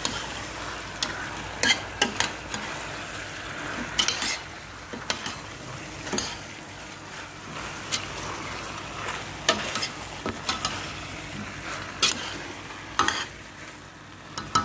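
A metal spoon stirring chicken pieces in a thick curry sauce in a stainless steel pot, scraping and clinking against the pot at irregular moments over a steady sizzle of the food cooking.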